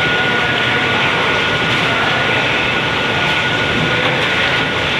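Chicken meat processing machine running: a loud, steady mechanical noise with a faint high whine on top.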